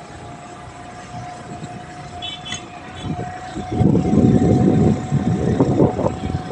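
Motorcycle running at riding speed with a steady engine hum. From about four seconds in, wind buffets the microphone loudly.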